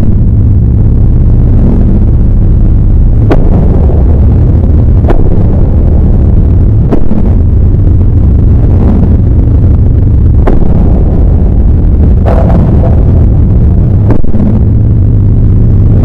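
A continuous, very loud, distorted low rumble, with a faint click about every two seconds.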